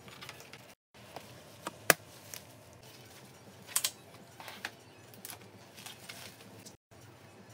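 A collapsible fabric pet-stroller basket being pulled open and set up by hand: soft rustling of the fabric with scattered clicks and taps from its frame and fittings. The sharpest click comes about two seconds in, and a few more follow a second or two later.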